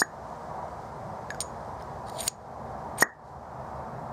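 Small machined steel parts clinking and tapping together as they are handled: a few sharp metallic clicks, the loudest about three seconds in, over steady background noise.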